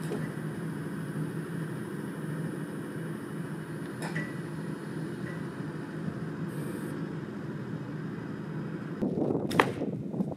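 A machine running with a steady hum, a single sharp knock about four seconds in, and a louder clatter with a brief high squeal near the end.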